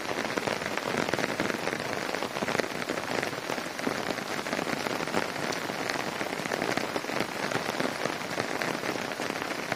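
Wet snow falling on apple-tree leaves and grass: a steady hiss made of countless small ticks, with no letup.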